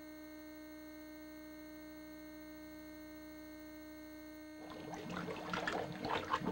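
Faint steady hum with a few thin steady tones from the VHS tape playback under a silent rating card. About four and a half seconds in, a faint crackling, rustling noise fades in and grows louder.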